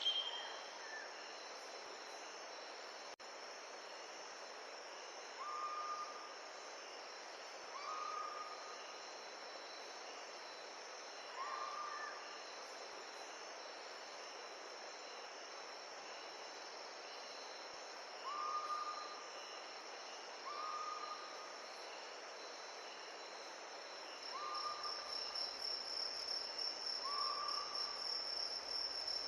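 Forest stream flowing steadily, with a short, level call repeated seven times a few seconds apart. Near the end a cricket starts a pulsing high trill.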